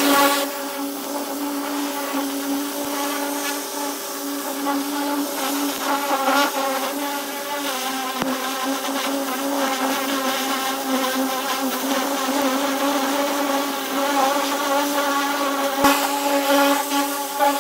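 Pressure washer running steadily, its motor and pump droning under the hiss of the high-pressure jet spraying the bare steel body panels of a stripped 1970 Dodge Challenger.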